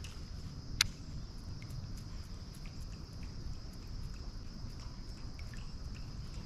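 Outdoor insect chorus: a steady high trill throughout, over a low rumble. One sharp click about a second in is the loudest sound, with a few faint ticks after it.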